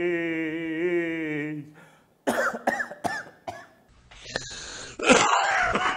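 A man's voice held on one long wavering note for about a second and a half, then a few short sharp clicks, then a harsh, raspy cough near the end.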